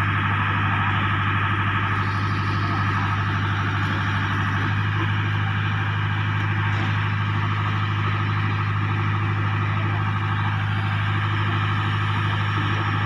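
JLG 120SX telescopic boom lift's diesel engine running at a steady speed, a constant low hum with a busy steady drone above it and no change through the whole stretch.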